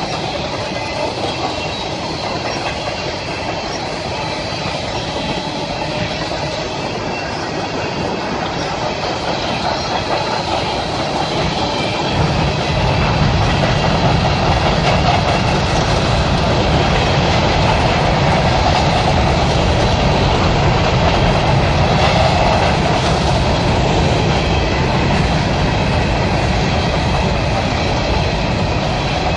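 Empty coal hopper cars of a long CSX freight train rolling past, their steel wheels running on the rails in a steady rumble. About twelve seconds in, the rumble gets deeper and louder.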